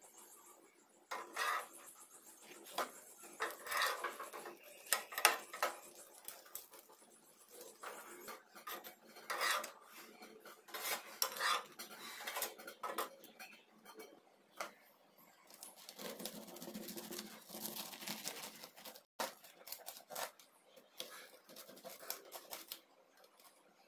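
Metal utensils clinking, tapping and scraping against a frying pan, then, after a break near the end, a knife cutting through toasted bread on a stainless steel tray, with short clinks of the blade on the tray.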